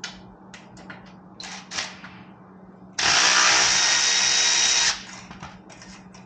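Cordless ratchet with a 10 mm socket running for about two seconds, starting about three seconds in, as it loosens a muffler clamp bolt. A few light clicks and taps of the tool being fitted to the bolt come before it.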